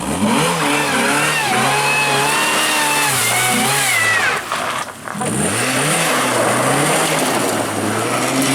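Rally car engine at full throttle, rising in pitch and holding high as it accelerates. About four and a half seconds in it drops briefly off the throttle, then pulls hard again.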